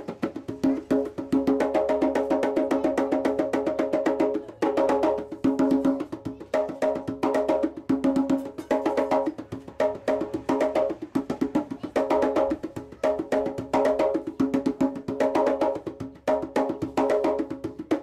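Djembe played by hand in a fast, steady rhythm, a dense run of strokes with brief breaks about four seconds in and near the end.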